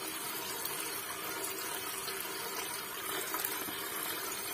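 A thin stream of sar (millet beer) draining from the bottom of a drum of soaked fermented millet mash and trickling steadily into a full basin, splashing and foaming where it lands.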